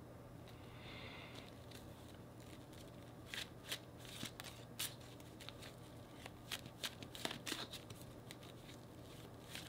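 A deck of tarot cards being shuffled by hand: quiet, irregular flicks and slaps of cards, starting about three seconds in.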